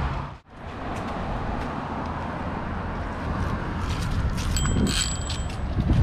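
Steady wind and rolling noise from a bicycle ride along a road, broken by a sudden short dropout just after the start. About five seconds in comes a brief high ringing tone.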